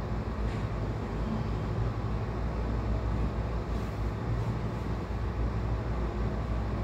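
Steady low rumble of engine and road noise inside a moving vehicle.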